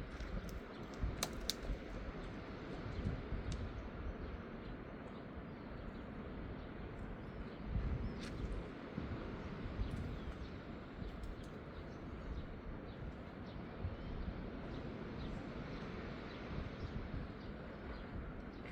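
Seaside ambience: a steady rush of surf with wind gusting on the microphone in low rumbles, and scattered faint bird chirps and small clicks.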